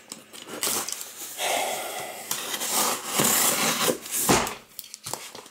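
A cardboard shipping case being handled and tipped on a table: rustling and scraping of cardboard, with one sharp thump about four seconds in.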